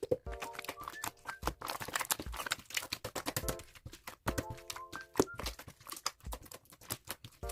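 Background music with a steady beat of low thumps about once a second, a short repeated chord figure, and many sharp clicks.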